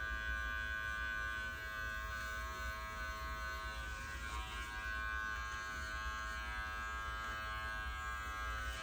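Electric dog grooming clippers running steadily as they trim a puppy's face, a constant electric buzz.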